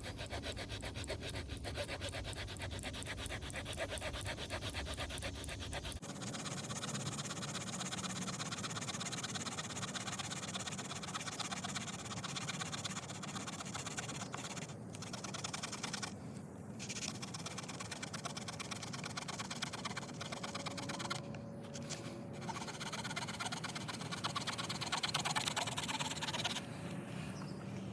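Victorinox Fieldmaster Swiss Army knife's small folding saw blade cutting through hard, dead dogwood: steady back-and-forth rasping strokes, with a few brief pauses.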